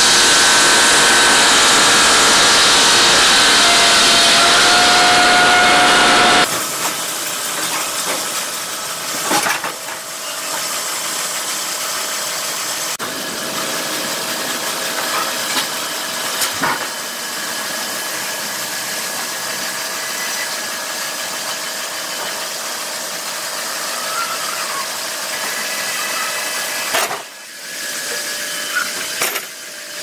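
Large circular sawmill blade cutting through a log, a loud, steady high-pitched whine and hiss that stops abruptly about six seconds in. Then comes the quieter, steady running of a log conveyor and infeed line, with a few single knocks.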